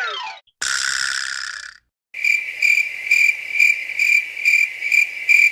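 Cricket chirping sound effect, a high chirp repeated about three times a second: the stock comedy cue for an awkward silence. Before it, about a second in, a short separate noisy effect.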